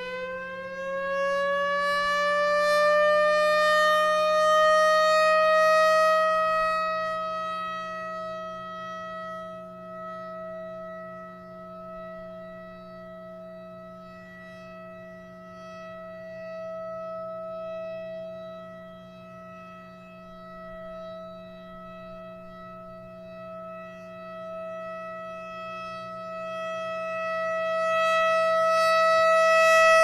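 Federal Signal Thunderbolt 1000 rotating outdoor warning siren sounding its monthly test. It winds up in pitch over the first several seconds, then holds one steady tone. Its loudness swells and fades as the rotating horn sweeps round, loudest a few seconds in, again at about the middle, and near the end.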